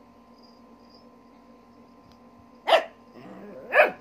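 Small dog barking in play: two sharp barks about a second apart near the end, with a lower, longer sound between them.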